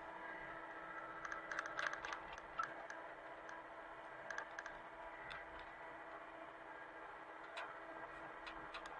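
Hitachi mini excavator's engine running steadily, with scattered sharp clicks and light clanks from the working machine.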